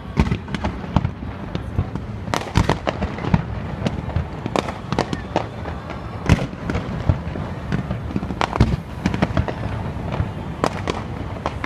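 Fireworks display going off: a rapid, irregular series of bangs and crackles of varying loudness, over a low rumble.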